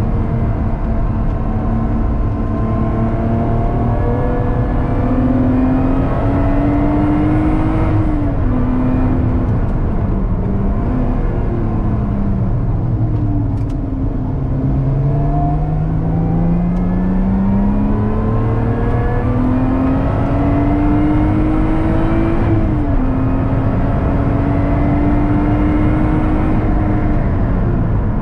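Lotus Exige 410's supercharged V6 heard from inside the cabin at track speed, over road and tyre noise. Its note climbs and falls with throttle, braking and gear changes: it sinks low about halfway through for a slow corner, climbs steadily, drops sharply at an upshift about three-quarters in, climbs again, then falls away under braking near the end.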